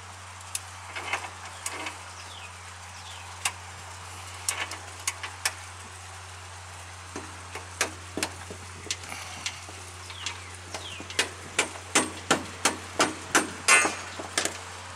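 Sharp metal knocks and clicks from hand tools working the strut pins out of a hinged mast's fittings. The knocks are scattered at first, then come in a regular run of about three a second near the end, over a steady low hum.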